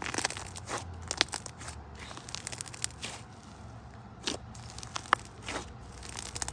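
Pink slime being pressed and squeezed by hand, giving irregular crackles and sharp pops, a couple of them louder than the rest.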